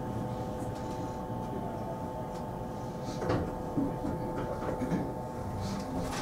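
227 series electric train's steady equipment hum, holding one pitch, with a short knock about three seconds in and another near the end.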